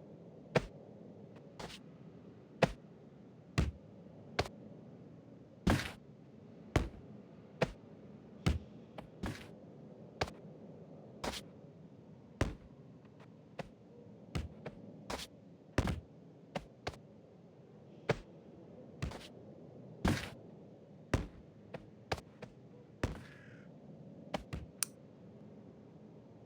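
A long run of sharp knocks, unevenly spaced at roughly one a second, each ringing on very briefly, over a low steady hiss.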